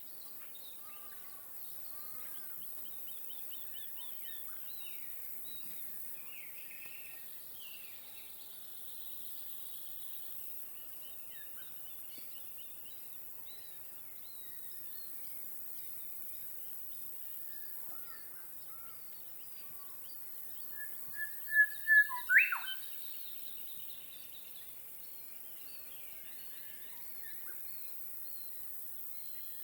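Lakeside wildlife ambience: many small birds chirping and trilling faintly at a distance over a steady hiss. A little past two-thirds of the way through, one bird calls loudly close by, a few quick notes followed by a sharp, sweeping cry.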